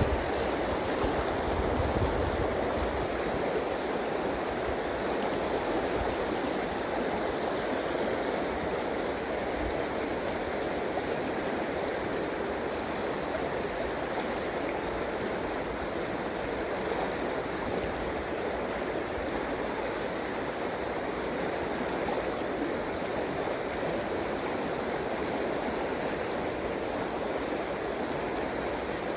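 River water rushing steadily, an even flowing-water hiss, with a little wind on the microphone in the first couple of seconds.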